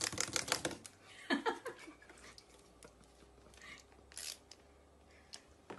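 Wind-up toy chick clicking rapidly, about a dozen clicks a second, stopping about a second in. A short sliding call follows, then a few faint taps and scrapes.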